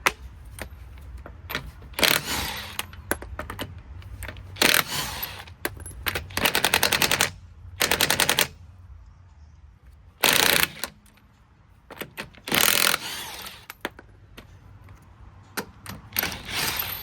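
Impact wrench hammering in short bursts, about seven of them, each lasting under a second, with small metal clicks between the bursts.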